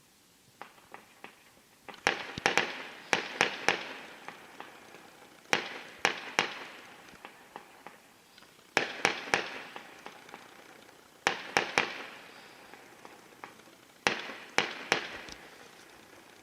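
Fireworks going off in volleys of sharp bangs, a group every two to three seconds, each trailing off in crackle and echo, after a few small pops at the start.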